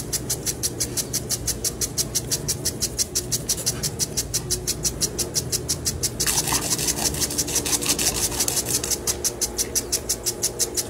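Impact sprinkler ticking steadily as its head steps round, about five ticks a second, with the spray's hiss growing louder about six seconds in.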